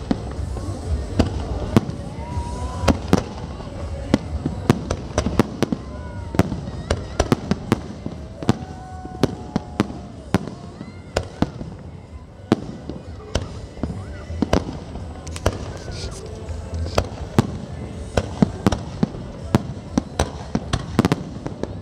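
Aerial fireworks display: shells bursting in a rapid, irregular string of sharp bangs over a continuous low rumble.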